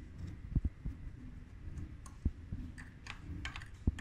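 Irregular light metallic clicks and ticks of a hand tool working at the bolts on the shell of an electric bike's rear hub motor among the spokes, with a few sharper knocks about a second in, past the middle and just before the end.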